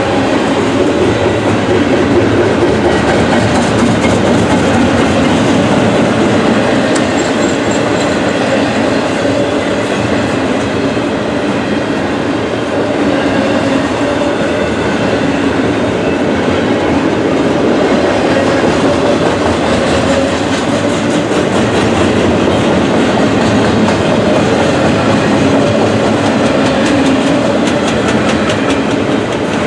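A Norfolk Southern freight train's cars rolling steadily past a grade crossing, with continuous wheel and rail noise and a clickety-clack over the rail joints.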